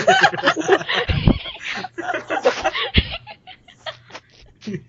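People laughing and snickering, dense for the first two and a half seconds, then thinning into a few short bursts.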